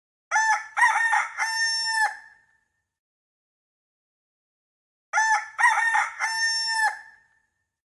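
Rooster crowing cock-a-doodle-doo twice, each crow about two seconds long, with a pause of about three seconds between.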